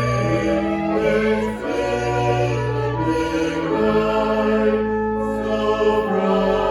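Slow choral music: sustained chords with a deep bass, the chord changing every second or two.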